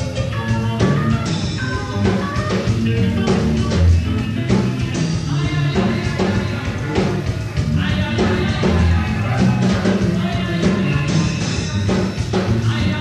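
Rock band playing live: drum kit, bass and guitar driving a steady beat, with a singing voice coming in over it.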